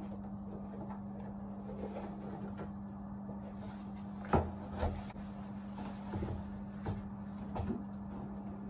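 Movement and handling noises of a person getting up from a bed and walking across a room: a sharp thump a little over four seconds in, a second knock just after, then a few softer knocks, over a steady low hum.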